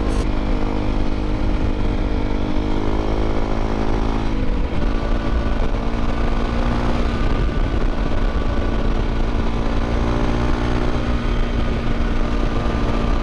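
Honda CRF250L Rally's single-cylinder engine running steadily under way, with wind noise on the microphone. The revs drop about four seconds in, then settle and hold steady again.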